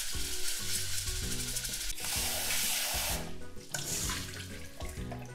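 Rice being washed by hand in water in a stainless steel saucepan, then the milky rice-washing water poured off through a mesh strainer into a steel sink, with the splashing heaviest about two seconds in. Light background music plays underneath.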